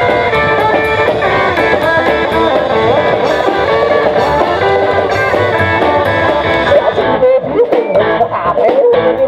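Live band playing an instrumental passage: electric guitar over upright double bass and drums. About seven seconds in, the playing breaks into short, sharp accented hits with brief gaps between them.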